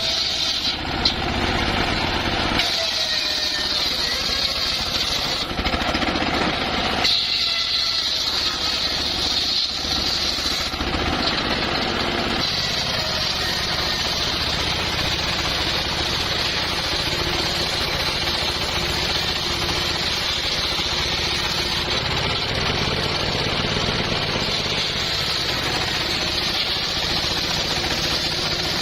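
Engine-driven homemade traveling circular saw running steadily while cutting small timber. Its sound shifts several times in the first half, then settles into a steady run.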